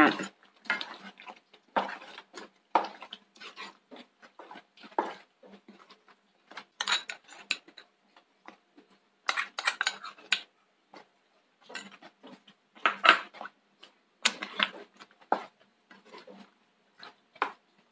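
Wooden spatula stirring a thick chicken curry gravy in a non-stick pan: irregular scrapes and knocks against the pan, coming in clusters every second or two.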